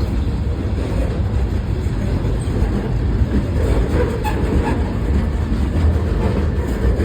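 CSX local freight train rolling past at close range: a steady, loud rumble of wheels on rail.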